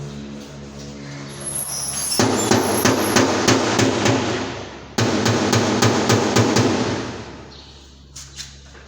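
Background music with a steady drum beat, cut off abruptly twice and fading near the end.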